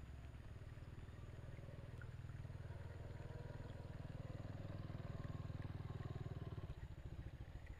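A vehicle engine's faint drone that grows louder over several seconds, then fades near the end.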